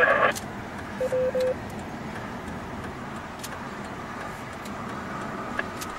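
Two-way amateur radio: a voice transmission ends, and about a second in three short beeps at one pitch follow, like a courtesy tone signalling the end of a transmission. After that only a steady background noise with a few faint clicks.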